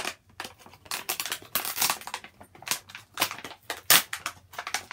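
Stiff plastic toy packaging crinkling and crackling as it is worked open by hand, a quick irregular run of sharp cracks with one louder crack near the end.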